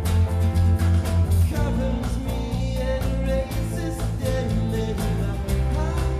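A live worship band playing a contemporary worship song: drums keeping a steady beat, bass and guitar, with singing. The bass moves to a new note about one and a half seconds in.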